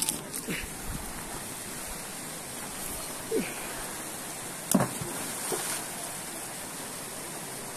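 Steady rush of river water flowing over stones, with a few short knocks and scrapes from footsteps on loose river stones. The loudest knock comes about five seconds in.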